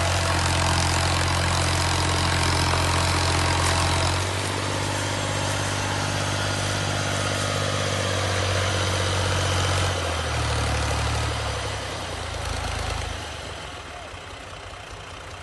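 Heavy farm machine's engine running at a steady idle with a low hum. It steps down in level about four seconds in, shifts pitch around ten seconds, then fades away near the end.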